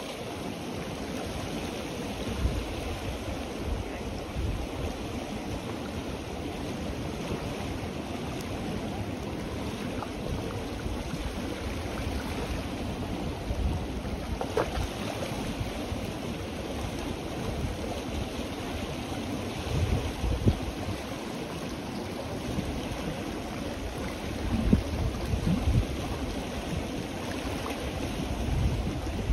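Fast-flowing, turbulent Ganges river rushing steadily past. Wind buffets the microphone in low gusts, a little after the middle and again near the end.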